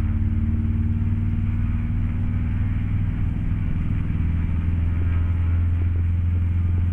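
Grob 109A motor glider's piston engine running steadily at about 2500 rpm during the engine checks before take-off, a loud even drone whose note shifts slightly about four seconds in.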